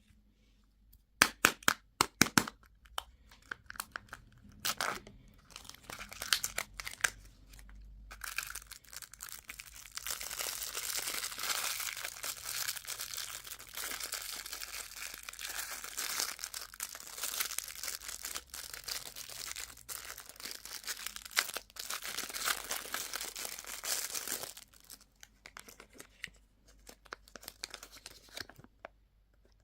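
A candy wrapper being torn open and crinkled by hand: a few sharp snaps early, then a long stretch of dense crackling, easing off to scattered crinkles near the end.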